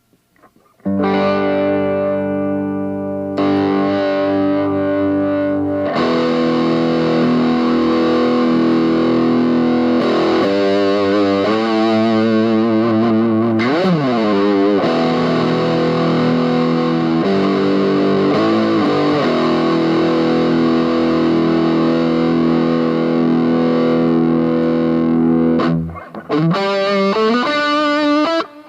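Aria Pro II PE electric guitar played through distortion: long, ringing chords, held notes wavering with vibrato about halfway through, a quick swoop in pitch down and back up, and single picked notes near the end.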